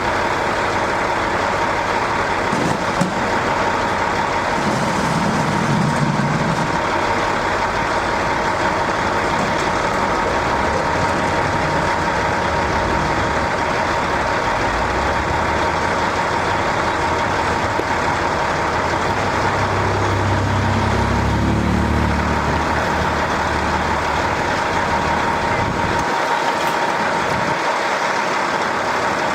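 A steady mechanical drone with a constant hum that doesn't change over the whole stretch, with a couple of brief low rumbles about five seconds in and again around twenty seconds in.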